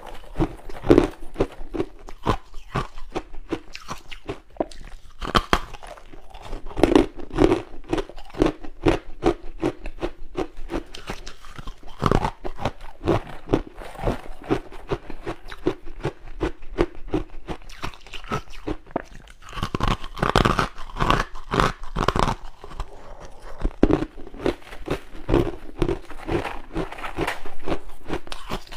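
Close-up chewing and crunching of freezer frost, a dense, irregular run of crisp crunches throughout.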